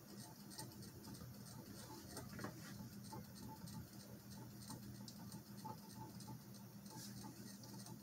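Worn, cheaply made mid-2000s ceiling fan running, its motor giving a steady low hum under a light ticking that repeats a few times a second. The noise is a sign of wear after some fifteen years with little maintenance; the fan is wobbly and its blades are in poor shape.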